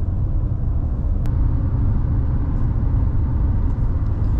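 Steady low rumble of a moving car heard from inside its cabin: road and engine noise at driving speed, with one faint click about a second in.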